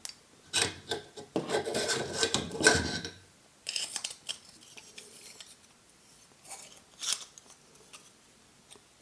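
Metal parts of an AR-15 upper scraping and clicking as the bolt carrier group and charging handle are worked into the receiver by hand: a few seconds of rubbing early on, then scattered scrapes and clicks.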